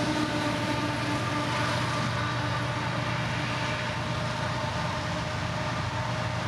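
A consist of diesel-electric freight locomotives, including a Wabtec ES30ACi, rolling past. It is a steady diesel drone with an even, high whine held over it.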